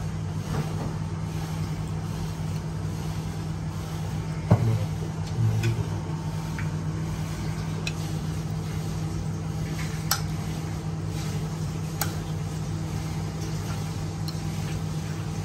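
A few light clinks of a metal serving spoon against a ceramic plate as food is put on it, the sharpest about four and a half seconds in, over a steady low hum.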